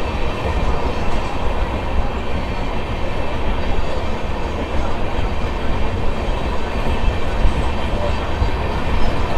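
Passenger train running on the rails: a steady, heavy low rumble of wheels and coaches with no break.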